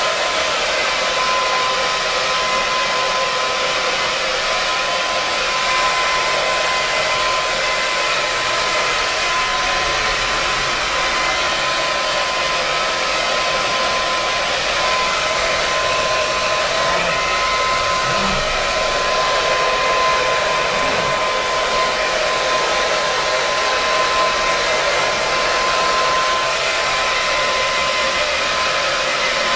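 Blow dryer running steadily on a dog's wet coat after a bath: an even rush of air with a steady motor whine.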